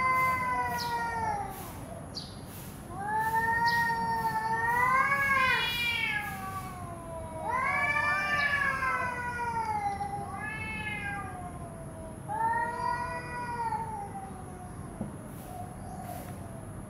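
Domestic cat meowing: four long, drawn-out meows that rise and fall in pitch, with short pauses between them. The first is already under way at the start. A faint steady high hiss runs behind them.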